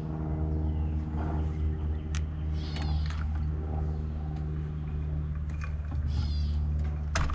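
A Weller 100-watt transformer soldering gun humming steadily with its trigger held while it heats solder on an XT90 connector. The hum ends with a sharp click near the end.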